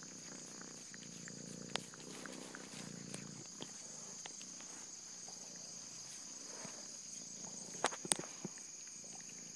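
Steady high-pitched chorus of crickets or other insects, with soft rustling and a few sharp clicks, the loudest a cluster of them about eight seconds in.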